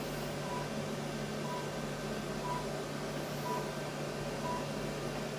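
High-power therapy laser beeping about once a second, five short even beeps, over a steady low hum. The beeps are the unit's signal that the laser is emitting during treatment.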